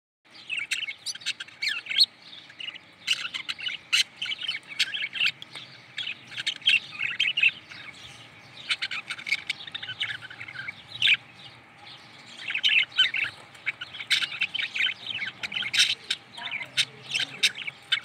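Small flock of canaries chirping and twittering: quick runs of short, high calls in bursts, with brief lulls between them.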